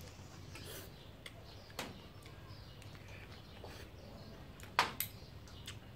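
Spoon and fork clinking and scraping on a ceramic plate while someone eats, with a few sharp clinks, the loudest pair near the end.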